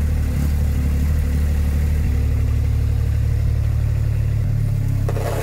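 JCB 8018 mini excavator's diesel engine running steadily under the operator, its note shifting about two seconds in and again near the end as the machine is driven back and forth on its rubber tracks. A short rush of hissing noise comes just before the end.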